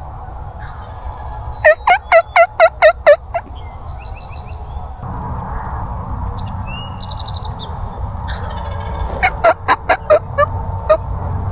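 Turkey yelping: two runs of quick, evenly spaced yelps, each note dropping in pitch, one about two seconds in and a longer one near the end that tails off. Small songbirds chirp between the runs.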